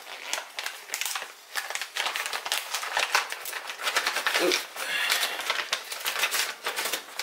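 Clear plastic parts bag crinkling and rustling as it is handled and torn open by hand, a quick run of small crackles.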